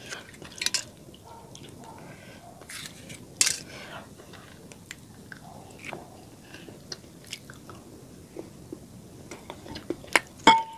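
Close-up eating sounds: the gold foil of a chocolate coin crinkling as it is peeled off, then the chocolate bitten and chewed. Near the end a metal fork clinks sharply against a glass bowl with a short ring.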